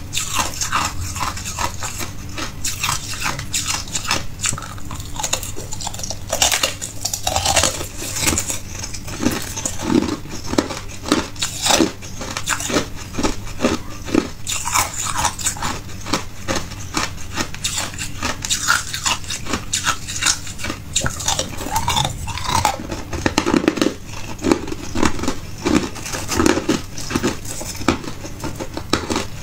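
A person biting and chewing hard ice: a dense, continuous run of crisp crunches and cracks as the chunks break between the teeth.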